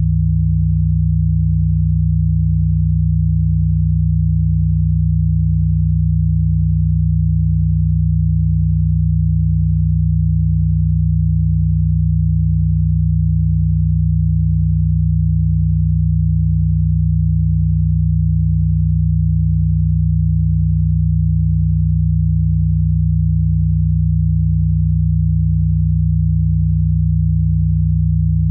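Steady, low-pitched electronic sine tone, a synthesized healing-frequency drone, holding unchanged without a break.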